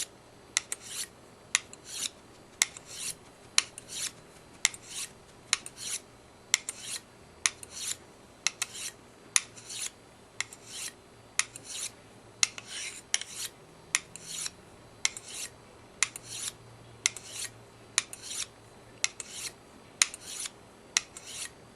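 Simmons Interceptor two-blade broadhead clamped in an edge guide and stroked on the fine side of a sharpening stone, with alternating light, quick strokes to take off the burr. The strokes are short scrapes at about two a second, each starting with a sharp click.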